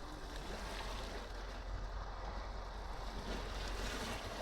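Sea washing against a rocky shore, with wind buffeting the microphone: a steady wash of noise and a low rumble, with no distinct events.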